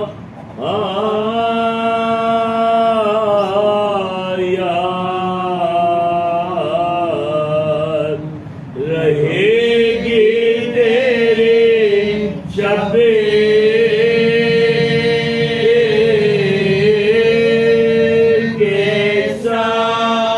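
A group of men chanting a Muharram mourning recitation together, unaccompanied, in long drawn-out melodic lines. They pause briefly for breath about a third of the way in and again just past halfway.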